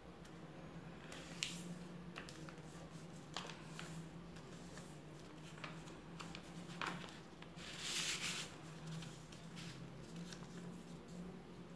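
A sheet of paper being folded by hand on a tabletop: soft rustles and crisp taps as the creases are pressed down, with a longer, louder rustle of the paper about eight seconds in. A faint steady low hum sits underneath.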